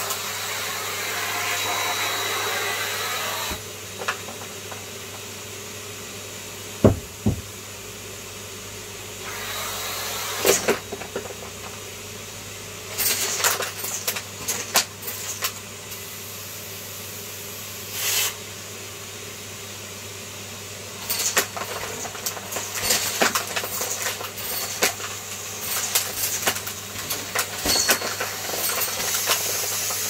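A Numatic James tub vacuum cleaner runs steadily, its suction hiss swelling and easing as the nozzle works the floor. Frequent clicks and rattles come as small bits are sucked up, and there is one sharp knock about seven seconds in.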